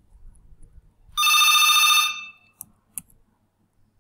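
A telephone ringing: one trilled electronic ring lasting about a second, starting a little over a second in, followed by a short click.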